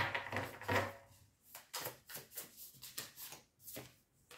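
A deck of cards being shuffled by hand: an irregular run of soft, papery flicks and slaps of card against card, busiest in the first second.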